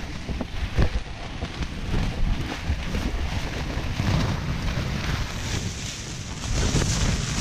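Wind and rain buffeting a tent, heard from inside as a fluctuating rushing noise that swells in a stronger gust near the end. A couple of sharp knocks come in the first second.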